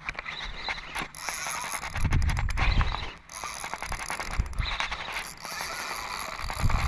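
Spinning reel clicking and ratcheting as its handle is cranked against a hooked fish. Low rumbles come in about two seconds in and again near the end.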